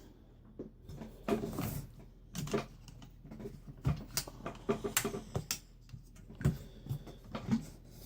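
Irregular clicks and knocks of metal clip latches being undone and metal vacuum-cleaner parts being handled, with softer handling noise in between.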